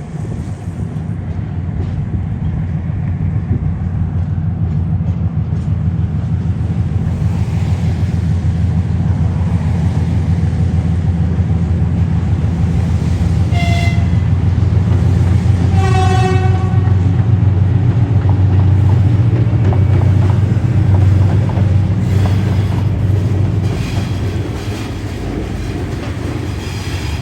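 A train rumbles past, the low sound building to a peak past the middle and then easing off. A short horn toot sounds a little after the middle, and a longer horn blast of about a second and a half follows some two seconds later, from the 2TE10M diesel locomotive.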